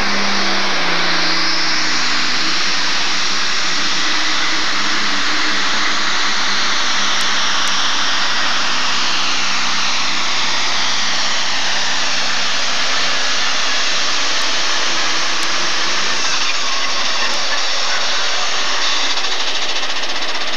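Turbocharged super stock pulling tractor engine running flat out under load as the tractor pulls the sled, a loud, steady, hissing high-pitched din.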